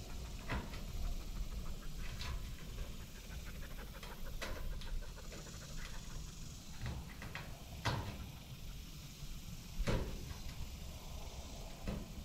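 Wind rumbling and hissing on the microphone, broken by six short sharp knocks about two seconds apart, the loudest near the middle and about ten seconds in.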